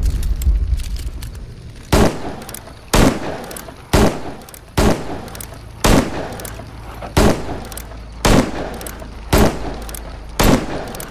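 Smith & Wesson Model 10-7 .38 Special revolver firing about nine single shots, roughly one a second, each sharp report followed by an echoing tail.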